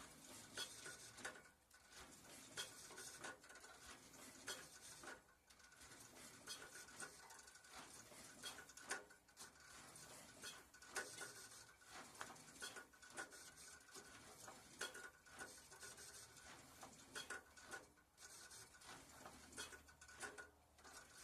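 Near silence with faint, irregular small clicks and rustles; no engine is running or cranking.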